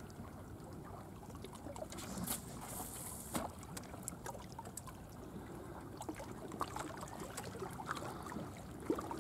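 Faint water lapping and trickling at the shoreline, with scattered small clicks and a sharper tick about three and a half seconds in.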